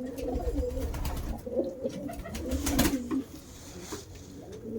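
Domestic pigeons cooing, repeated low warbling coos throughout, with a brief rush of noise a little under three seconds in.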